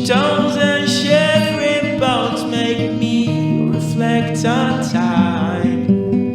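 Guitar-led band music at a steady tempo: a high melody line slides into each note over a repeating low figure.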